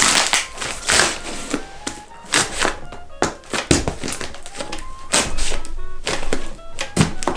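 A sabre blade hacking and scraping through a taped cardboard box, a string of short rough rasps and thuds. A light tune of short notes plays over it.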